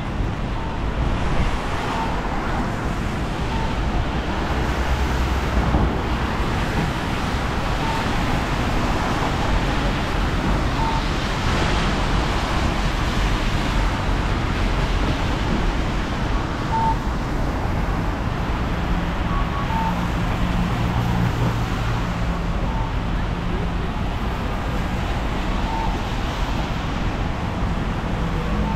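Rainy city street ambience: traffic on wet roads and a steady wash of rain noise, with a low rumble of passing vehicles.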